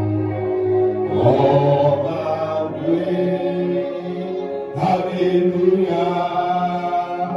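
Slow worship music: held keyboard chords with group singing over them, the voices coming in about a second in and again near the five-second mark.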